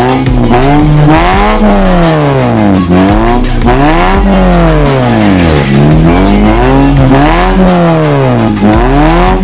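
Toyota Vios four-cylinder engine revved repeatedly through a cat-back exhaust with an HKS free-flow burnt-titanium-tip muffler. The pitch climbs and falls about three times, with another rev starting near the end.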